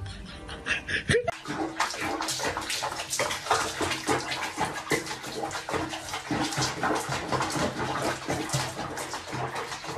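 Water splashing irregularly in a small tub, starting about a second in.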